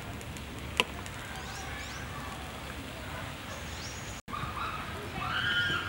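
Outdoor ambience: a steady hiss with scattered high bird chirps, and one sharp click about a second in.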